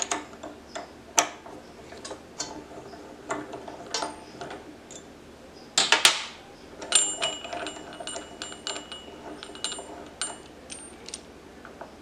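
Metal clicks and clatter of an Allen key turning the blade arbor bolt of an Evolution S355CPSL chop saw and the bolt and outer flange being taken off. A loud clatter of metal on metal comes about six seconds in, followed by a few seconds of high metallic ringing among lighter clicks.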